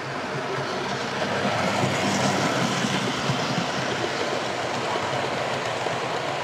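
Bachmann model Stanier Jubilee steam locomotive and its train of model coaches running past on model railway track: a steady rolling rumble of wheels on rails with a low motor hum, growing louder about two seconds in as the locomotive comes by.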